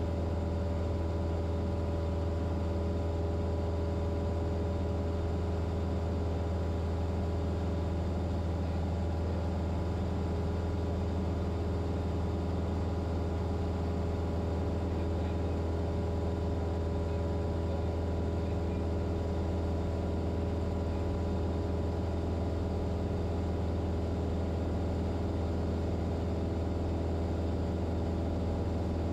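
Light airplane's piston engine and propeller running steadily, a constant low drone with a few steady higher tones and no change in power, heard from inside the cockpit.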